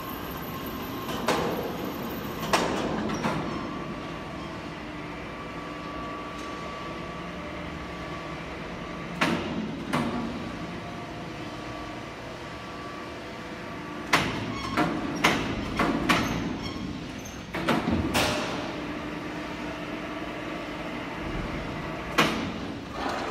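Steady factory-hall background noise with a faint held whine, broken by scattered sharp knocks and bangs, several in quick succession about two-thirds of the way through.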